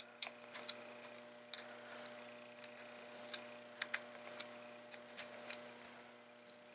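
Faint, scattered small clicks from a baitcasting reel as its side plate is tightened back up and the reel is turned in the hands. A sharper pair of clicks comes about four seconds in.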